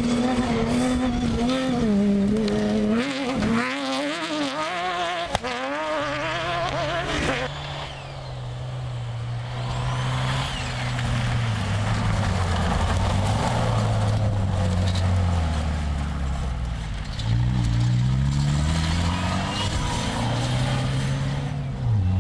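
Off-road rally cars running flat out. First a prototype buggy's engine revs up and down rapidly. Then a Mitsubishi Pajero rally car's engine takes over with a lower note that steps up and down, rising again about three-quarters of the way through and near the end.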